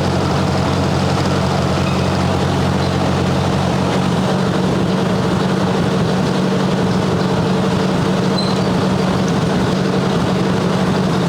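1958 Ford 851 tractor's engine running steadily, with its rebuilt hydraulic pump, now filled with fluid, working.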